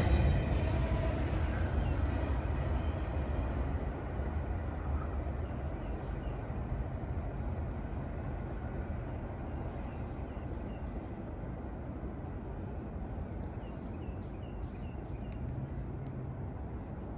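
Freight train rumbling away into the distance, fading steadily, with low wind noise throughout. A few faint high chirps near the end.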